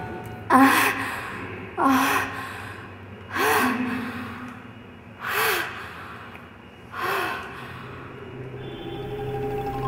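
A woman gasping for breath: five sharp, voiced intakes of breath, each falling in pitch, coming more slowly and growing quieter. Sustained musical tones come in near the end.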